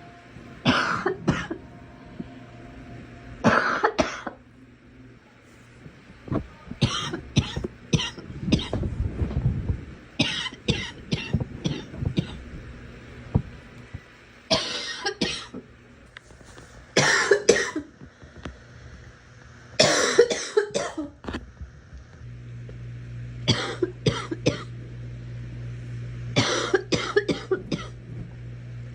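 A girl coughing over and over, in fits of two to four sharp coughs that come every two to three seconds.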